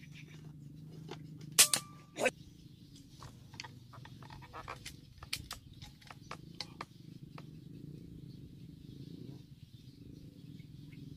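Two sharp clicks about a second and a half and two seconds in, the first the loudest with a brief ring, then scattered faint ticking over a low steady hum.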